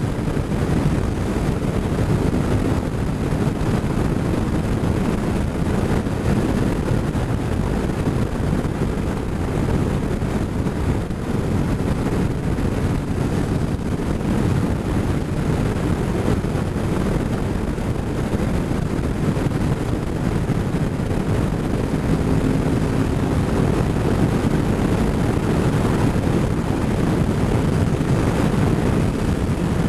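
Motorcycle cruising at road speed: steady wind rumble on the microphone mixed with engine and road noise.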